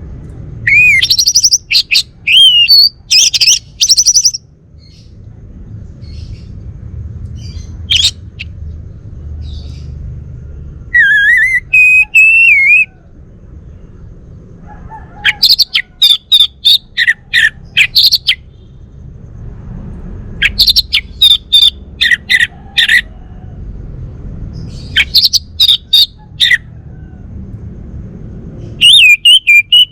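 Male orange-headed thrush singing loud phrases of quick, varied chirps and whistles, with short pauses between them, over a steady low background rumble.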